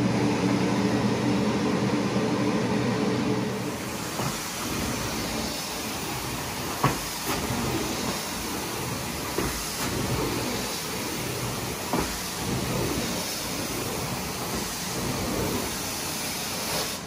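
Drying fan blowing on a freshly cleaned carpet, a steady rush of air with a motor hum for the first few seconds. A few light knocks and clicks sound over it.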